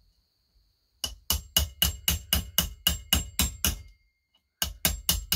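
Hammer tapping a steel socket onto a Husqvarna 240 chainsaw's muffler bolt that no standard socket will fit: a quick run of about eleven ringing metal taps, about four a second, then after a short pause a few more.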